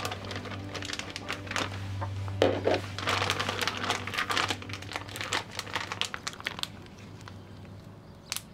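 Plastic zip-top bag crinkling and rustling as it is handled and squeezed to press the air out. The crinkling is densest around the middle and thins out near the end.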